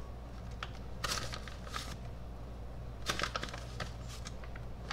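Dry sun-dried tomato pieces being handled and dropped into a ceramic mixing bowl of pasta salad: two short bursts of crisp crackling and light clicking, about a second in and about three seconds in.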